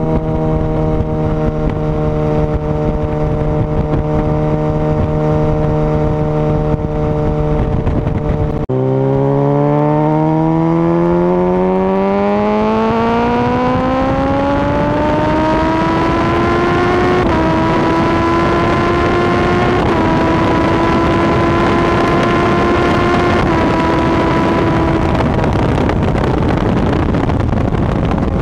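Honda CBR1000RR Fireblade's inline-four engine heard from on board, first cruising at a steady note. About nine seconds in the note drops, then climbs steadily under hard acceleration. Near the end three brief dips in pitch mark quick upshifts, while wind rush grows on the microphone.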